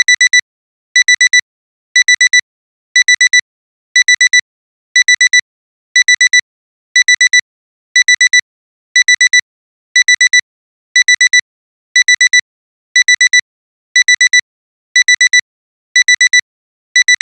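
Digital alarm clock beeping: a high electronic tone in quick bursts of four beeps, repeating once a second, signalling that the timer has run out.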